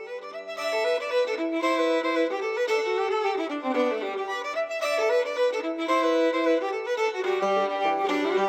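Background music: a fiddle tune, its notes moving in a steady run.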